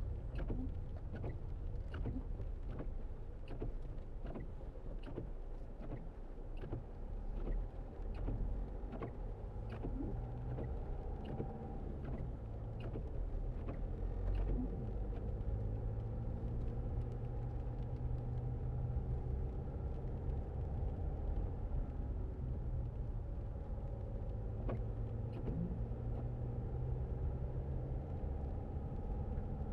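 Land Rover Freelander 2 driving slowly on a narrow road, heard from inside the cabin: a steady low engine and road rumble. Scattered light clicks are heard through the first dozen seconds or so, and a steadier engine hum sets in about halfway through.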